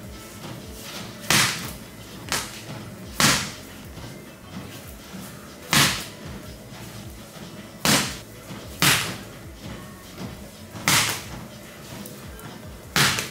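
Medicine ball slammed onto a gym floor again and again: about seven loud thuds, one every one to two and a half seconds, over background music.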